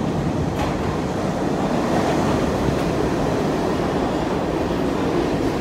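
New York City subway train running into the station alongside the platform, a steady loud rumble of steel wheels on rail with a couple of faint knocks.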